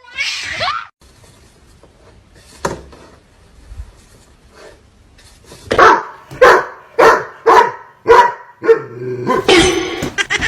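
A dog barking. A high falling cry comes at the start, then a run of about five barks, roughly two a second, in the second half, and more barking near the end.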